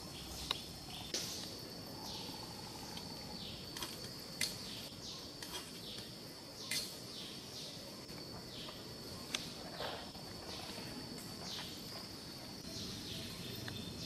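Outdoor ambience: a steady high insect drone, with birds giving many short falling chirps and a few sharp clicks.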